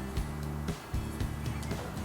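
Background instrumental music with sustained chords that change every half second or so.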